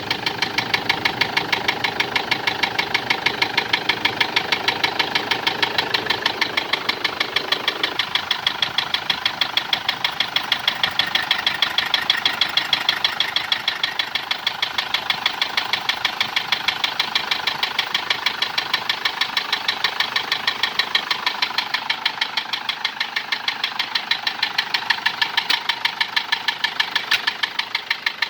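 Toyota Hilux D-4D diesel engine idling with a steady, evenly repeating knock. The uploader puts the noise down to the engine running low on oil after a leak.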